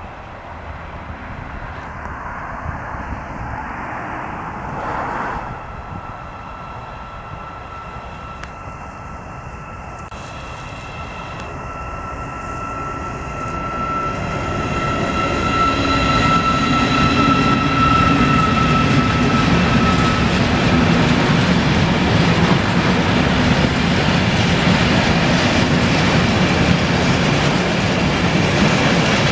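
Class 88 locomotive hauling a train of box wagons past on the rails, growing louder about halfway through as the wagons go by close. A steady high whine is heard through the first half.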